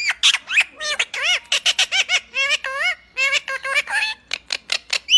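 Green ringneck parrot (rose-ringed parakeet) chattering: a rapid, unbroken string of short, high squawks and chirps that bend up and down in pitch, several a second.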